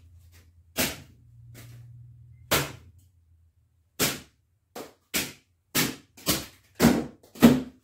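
Katana blade slicing through a foam pool noodle: nine sharp cutting snaps. Two come a second and a half apart, then after a pause seven more follow about every half second, the last ones the loudest.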